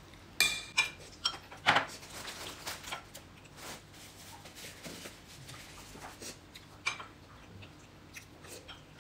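Eating at a table: a spoon clinking against a glass bowl and plates. There are several sharp clinks in the first two seconds and one more around seven seconds in, with softer eating and mouth sounds in between.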